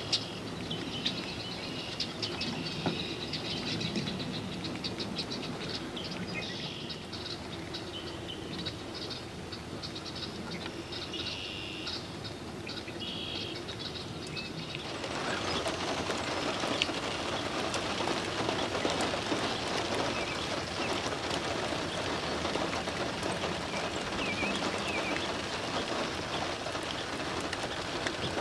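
Small birds chirping over a faint outdoor background; about halfway through, a louder, even rushing noise sets in and covers the chirps for the rest of the time.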